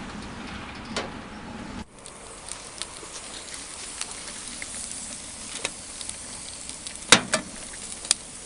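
Wood fire burning in a homemade can stove, a steady hiss with scattered crackles and pops; the loudest pop comes about seven seconds in, with a few more near the end.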